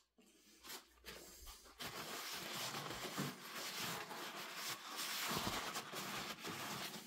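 Blue paper shop towel rubbing over the painted metal head and belt cover of an old AMT drill press: a continuous scratchy rustle rising and falling with the wiping strokes, starting about a second in.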